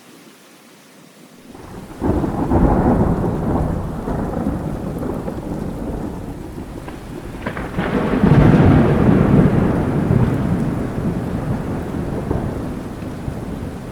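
Steady rain, then a thunderclap about two seconds in that rolls on as deep rumbling. The thunder swells again a little past the middle and slowly fades under the rain.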